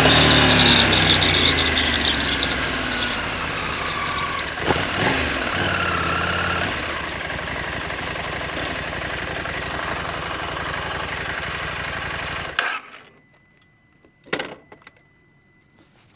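KTM 790 Adventure's parallel-twin engine running, its pitch falling over the first second or two and then steadier. It stops abruptly about twelve and a half seconds in, followed by a single knock a couple of seconds later.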